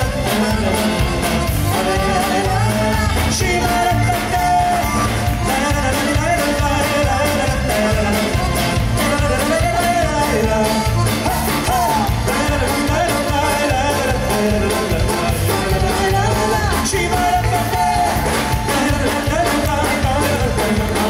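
Live band playing a song with a man and a woman singing into microphones, over drums, a Yamaha Motif keyboard and electric guitar, with a steady beat.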